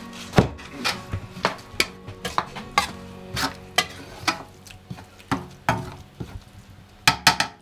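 Metal utensil scraping and knocking against a frying pan as a thick fried mixture is stirred, in irregular strokes about two or three a second, with a quick run of three knocks near the end.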